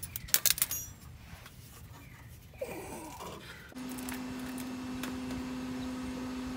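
Metal clinking a few times in quick succession as tools and a starter motor are handled under a pickup truck. About four seconds in, a steady low hum starts abruptly and carries on.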